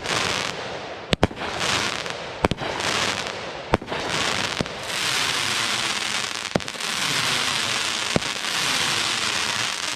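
Sunwing 'Tiger Tail' firework cake firing: sharp launch reports every second or two, with a continuous crackling hiss between them that thickens over the second half.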